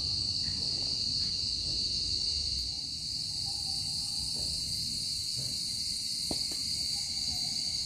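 Crickets singing at night in a steady, unbroken high-pitched chorus, with a faint click about six seconds in.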